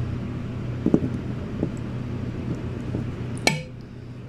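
A metal ladle serving curry into a ceramic bowl: a few soft knocks, then one sharp ringing clink of the ladle against the bowl about three and a half seconds in, over a steady low hum.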